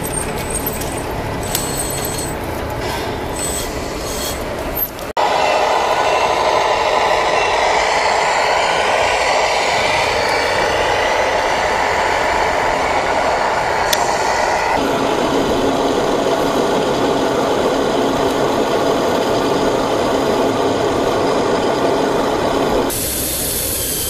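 Radio-controlled scale tractor truck running: a loud, steady engine-like drone that starts abruptly about five seconds in and shifts in tone around fifteen seconds in. Before it there is a lower mechanical sound with a few sharp clicks.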